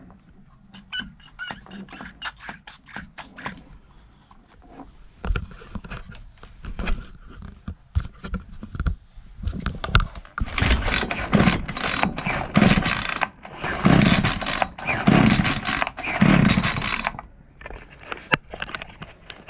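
Handling noise from a Titan grass trimmer: plastic clicks, knocks and scraping as its head and housing are turned over by hand. About halfway through, louder rubbing and rustling bursts take over for several seconds, then ease off near the end.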